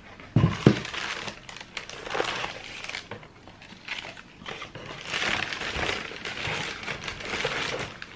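Two dull thumps about half a second in, then paper rustling and crinkling as a pair of trainers is lifted out of its shoebox wrapping and handled.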